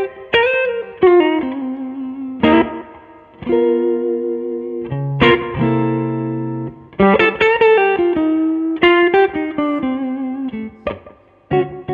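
SVL Strat-style electric guitar played through a Two-Rock Classic Reverb Signature amplifier. It plays improvised blues lead lines with string bends, broken by a couple of held chords about a third and halfway through.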